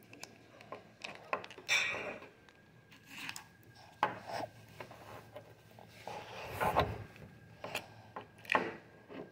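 Hands working at the lid of a small plastic toy canister: scattered clicks, short scrapes and rubbing of plastic against plastic, with a longer handling rumble about two-thirds of the way through.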